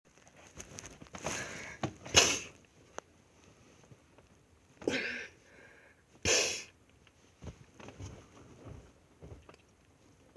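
A person sniffing close to the microphone: four short sniffs, the second the loudest, with a few small clicks between them.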